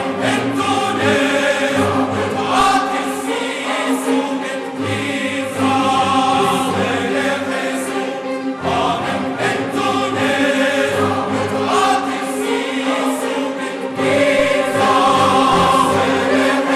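Choir singing held chords with symphony orchestra accompaniment, in a live-broadcast recording; the music swells louder about fourteen seconds in.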